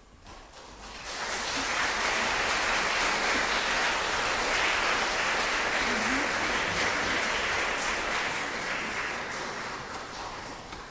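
Audience applauding, swelling over the first second or so and dying away near the end.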